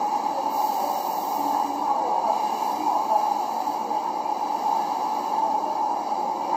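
Steady, muffled hiss of noise with no clear words, strongest in the low-middle range.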